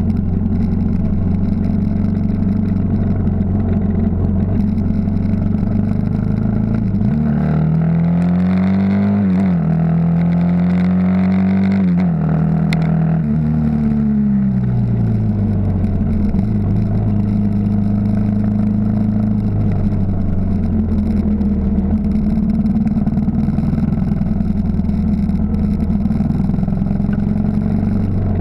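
Yamaha XT 600's single-cylinder four-stroke engine running under way, with the rider's own bike close to the microphone. About seven seconds in the revs rise and hold higher for several seconds, then ease back down and stay steady.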